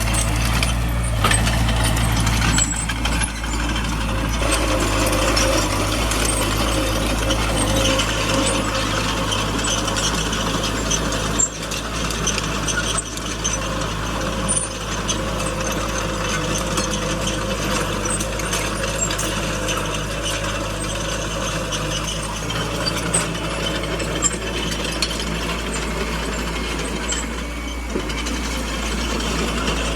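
Small crawler bulldozer at work: its diesel engine runs steadily under a continuous metallic clatter of the steel tracks and running gear.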